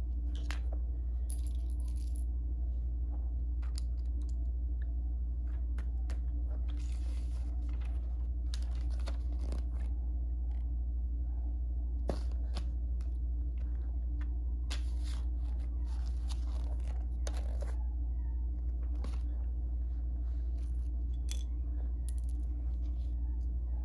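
Plastic Lego bricks clicking and clattering as they are sorted, set down on a wooden floor and pressed together, with a few brief rustles of the paper instruction booklet. A steady low hum runs underneath.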